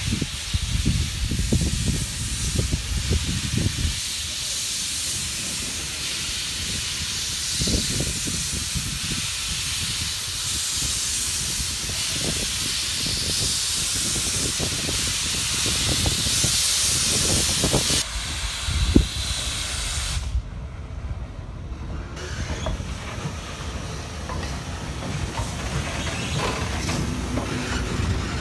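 Steam locomotive SJ 1916 hissing loudly as steam blasts from its open cylinder drain cocks while it creeps forward. About two-thirds of the way through the hiss drops away, coming back more quietly near the end.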